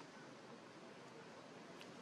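Near silence: a faint, even hiss of background noise, with one faint tick near the end.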